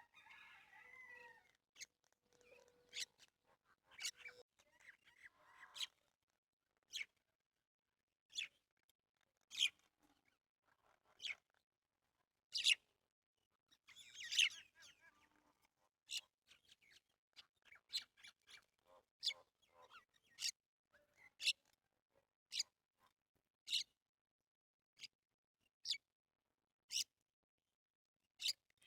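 Small birds chirping: short, sharp, high chirps about once a second, with silence between them and a longer call about halfway through.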